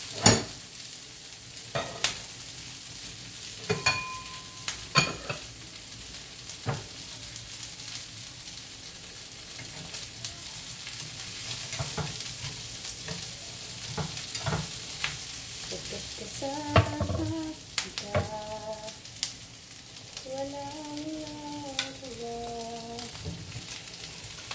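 Fatty meat and sliced onions sizzling in oil in a frying pan, with wooden chopsticks clicking and scraping against the pan as they are stirred; the loudest knock comes just after the start.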